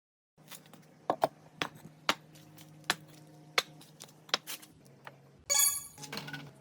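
Glass marbles clicking against one another and the wooden run in single, irregular strikes, then a louder, ringing clatter of several marbles about five and a half seconds in.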